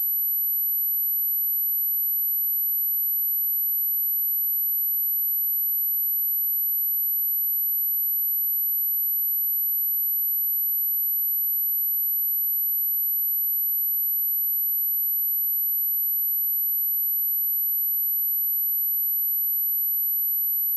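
A pure 11832 Hz sine test tone, a single steady high-pitched whistle held at constant level without a break, used to test speakers and to vibrate water and dust out of them.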